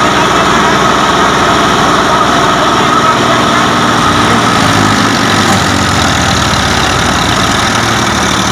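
Massey Ferguson 1035 DI tractors' three-cylinder diesel engines running loud and steady under heavy load, pulling against each other on a chain in a tug-of-war.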